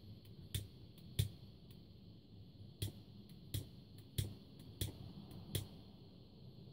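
A string of sharp clicks from a piezo gas igniter, about one a second at uneven spacing, the flame failing to catch because the gas has run out.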